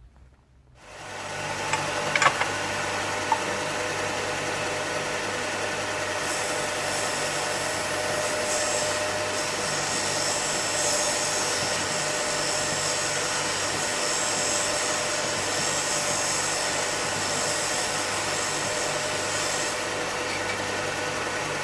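Charnwood BD46 belt and disc sander's 450-watt induction motor starting up and running with a steady hum, with wood sanded on the spinning 6-inch disc, a brighter hiss, from several seconds in until near the end.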